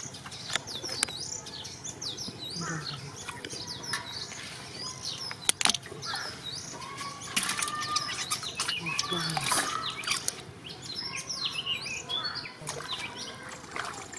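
Small birds chirping and twittering in many short, quick calls, over splashing and sloshing from hands and a net working through shallow muddy water. A sharp knock about five and a half seconds in is the loudest moment.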